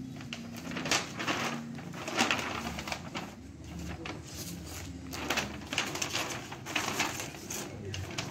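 Paper shopping bag and plastic-wrapped clothing package rustling and crinkling as they are handled, in irregular short crackles. The loudest come about a second in, just after two seconds, and several between five and seven seconds.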